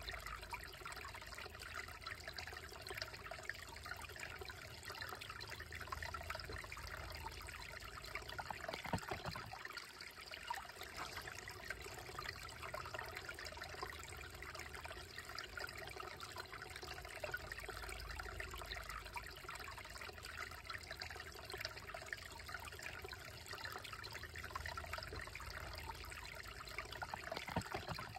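Slow-moving shallow creek trickling over rocks: a steady, gentle watery babble.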